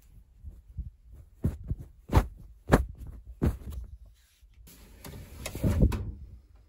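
A duvet and its cover being handled up close: a string of muffled thumps, then about a second of fabric rustling that stops suddenly.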